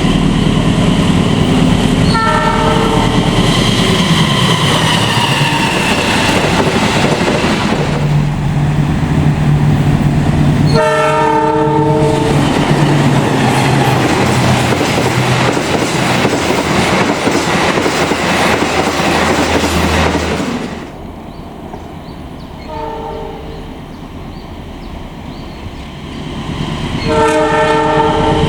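Indonesian diesel locomotive horns sounding the semboyan 35 signal in short multi-tone blasts, four in all, over the loud rumble and wheel clatter of passing trains. The rumble cuts off suddenly about two-thirds of the way through, and the last two horn blasts sound over a quieter background.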